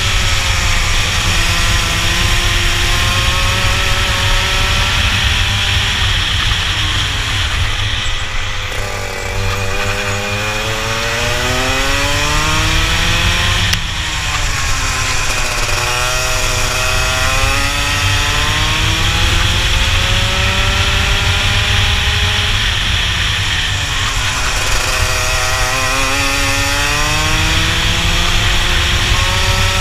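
Rotax kart engine at racing speed, heard close up: its pitch climbs steadily as the kart accelerates and drops sharply three times as it lifts off for corners, over a steady low rumble.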